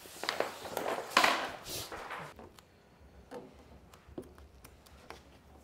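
Vinyl wrap film being handled: the sheet rustles and crinkles for about two seconds, loudest about a second in, then only a few faint light clicks and taps as it is worked into the edge with a squeegee.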